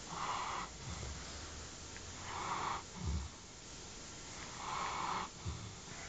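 Central Asian Shepherd Dog (alabai) snoring in its sleep: three slow breaths about two and a half seconds apart, each a wheezy hiss followed by a short low snore.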